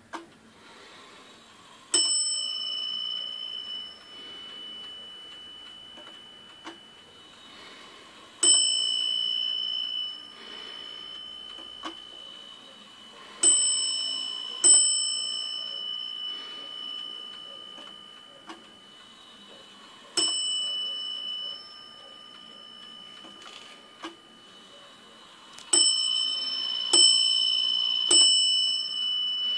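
A Warmink Sallander Dutch wall clock's striking bell rings eight times as its hands are turned forward: single strikes and runs of two and three about a second apart, each note ringing on and slowly dying away.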